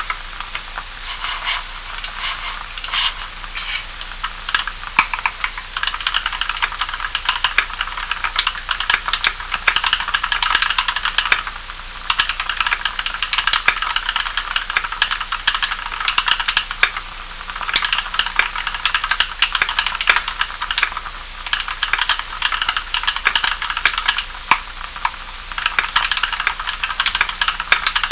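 Typing on an EO87 mechanical keyboard with Kailh Cream linear switches, lubed with Krytox 105 oil and fitted with 75 g springs and switch films: a fast, uneven run of key clacks with a few brief pauses.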